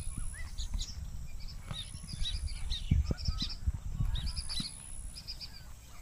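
Weaver birds chattering at their colony of hanging woven nests, many short chirps overlapping continuously, over a low rumble.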